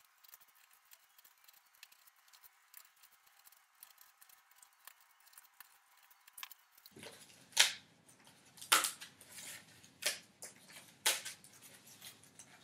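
A knife cutting through cardboard. Faint scratchy clicks at first, then from about seven seconds in a series of loud, short scraping strokes as the blade cuts through the board.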